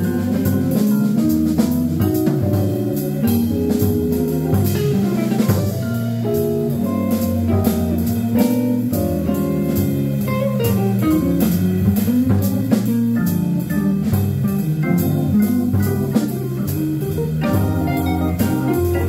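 A live instrumental trio playing a bluesy jazz tune: a hollow-body electric guitar, a drum kit with steady cymbal strokes, and an electric keyboard.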